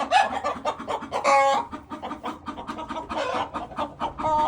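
Domestic hens clucking and squawking, several short calls a second or two apart, over quick scratchy rustling and clicks. The hens are agitated at being disturbed in their nest boxes during egg collection.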